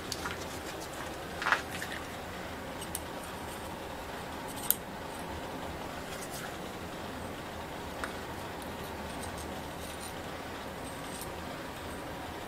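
Razor-blade scraper working old grip residue off a bicycle handlebar, with a few sharp clicks and taps of the metal tool against the bar, the loudest about a second and a half in and another near five seconds.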